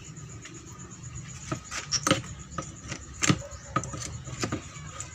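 Claw hammer prying loose wooden stopper blocks that were nailed shallowly to a plywood table frame: irregular sharp metallic clicks and wooden knocks, the loudest about two and three seconds in.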